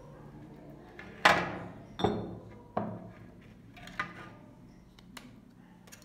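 Kitchenware knocking on a plastic mixing bowl while a ceramic mug and a metal spoon are handled over it. Three sharp knocks, each ringing briefly, come about a second apart starting about a second in, the first the loudest, followed by a few fainter taps.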